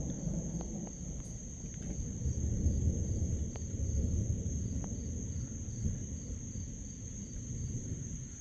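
Insect chorus: a steady high-pitched drone with crickets chirping evenly at about two to three chirps a second, over a low rumbling noise.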